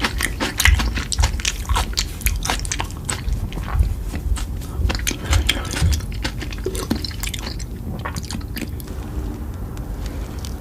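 A person chewing and biting food close to the microphone: many short wet clicks with low thumps, which thin out about eight seconds in.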